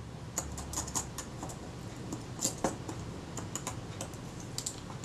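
Irregular light clicks and taps as a thin pick and small parts work against the Kodak Retina IIIc's leaf-shutter mechanism while a spring is hooked over a post.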